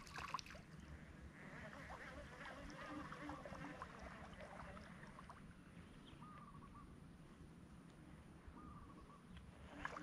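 Near silence: faint outdoor ambience with a few faint, short chirps.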